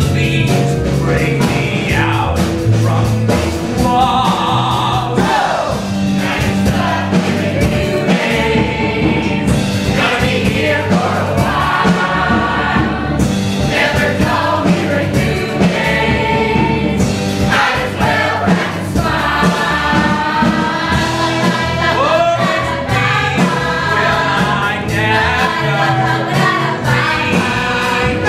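A song from a stage musical: a group of voices singing together over instrumental accompaniment.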